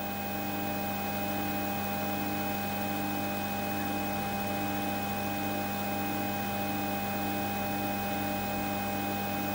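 Steady electrical mains hum from a variac feeding a lamp load through a vintage Ferranti electricity meter at about 120 volts. A faint overtone pulses about one and a half times a second.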